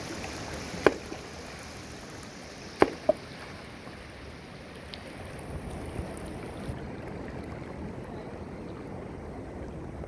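A sledgehammer strikes a river rock three times: once about a second in, then twice in quick succession near three seconds, the last with a short ring. This is hammer fishing, stunning the fish sheltering under the rock. Shallow river water rushes steadily underneath.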